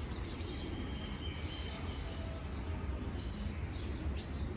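Outdoor ambience: a few faint, short bird chirps over a steady low rumble.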